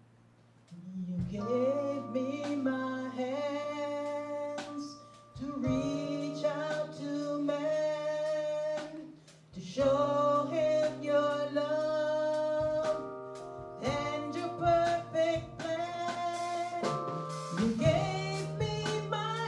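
A woman singing a gospel special song over instrumental accompaniment, in phrases a few seconds long, starting about a second in after a brief hush.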